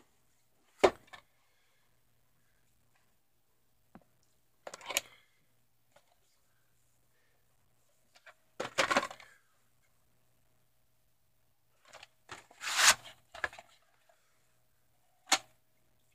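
Plastic VHS cassettes and cases handled on a wooden shelf: a handful of separate clacks and short scraping rustles as one tape is slid back into the row and the next is pulled out and turned over. A faint steady hum sits underneath.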